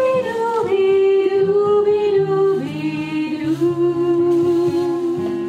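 A woman singing long held notes that slide from one pitch to the next, amplified through a microphone. Lower steady notes are held underneath.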